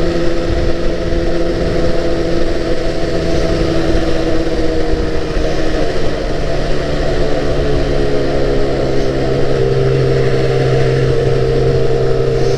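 Yamaha R1-Z's two-stroke parallel-twin engine running steadily under way, its expansion chambers just reassembled with fresh silencer packing. About six seconds in the engine note drops to a lower pitch and holds there.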